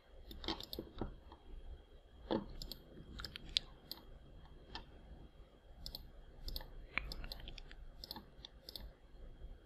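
Computer mouse and keyboard clicking, faint and irregular, as Blender is worked with mouse clicks and keyboard shortcuts.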